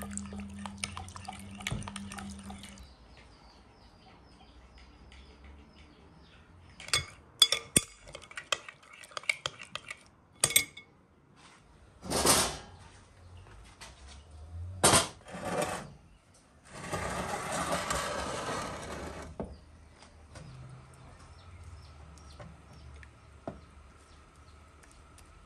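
Kitchen clatter of dishes and metal utensils: a run of sharp clinks and knocks, then a few short rushing noises and a steady hiss lasting about two and a half seconds.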